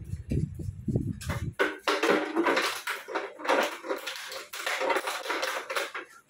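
Plastic bottle crinkling and crackling in a puppy's mouth as it runs about with it, in dense, irregular crackles that set in about a second and a half in.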